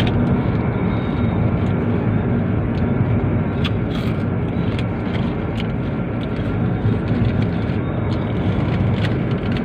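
Steady road and engine noise of a car driving, heard from inside the cabin as an even low rumble, with a few faint ticks over it.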